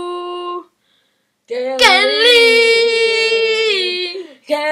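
A voice singing long held notes without words: one note breaks off just after the start, and after a short pause a second note is held for nearly three seconds, dropping in pitch as it ends.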